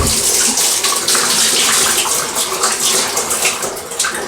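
Water running from a tap in a steady rush as rusted vise-grip locking pliers are rinsed of the vinegar they soaked in.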